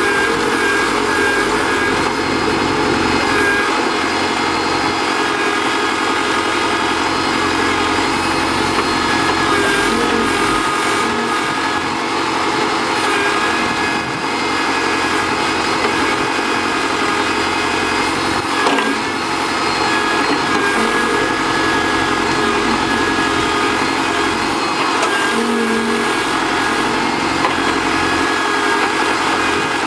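Tafe tractor's diesel engine running steadily, powering a rear-mounted backhoe as it digs soil. One brief knock about two-thirds of the way through.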